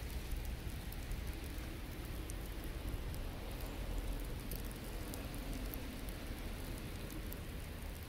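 Steady hiss of wet snow falling, with scattered faint ticks.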